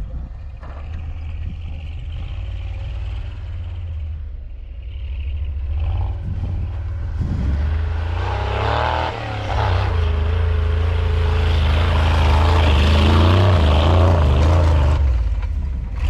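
Off-road 4x4 truck's engine running, then revving hard under load from about seven seconds in, its pitch rising and falling before easing off near the end.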